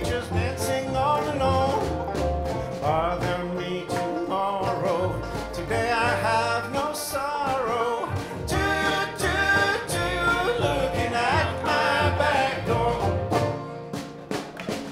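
Live acoustic band playing a country-rock song: a man singing lead over acoustic guitar, mandolin, upright bass and snare drum. The music gets a little quieter near the end.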